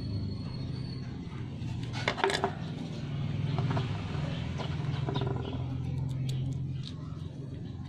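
A low, steady engine drone runs throughout. Over it come small clicks and rattles of a plastic motorcycle handlebar switch housing being handled, a quick cluster about two seconds in and lighter ones later.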